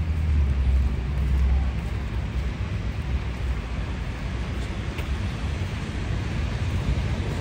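Traffic on a city avenue: a vehicle's deep rumble is strongest for the first couple of seconds, then eases into a steady wash of road noise.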